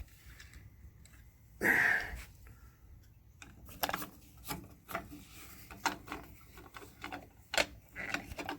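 Scattered small clicks, taps and rubbing of hands working the plastic turn signal lens and bulb housing, with one louder, longer scrape or rustle just under two seconds in.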